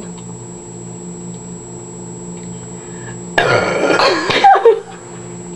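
A person's loud, drawn-out burp, starting about three and a half seconds in and lasting over a second, rough with a wavering pitch.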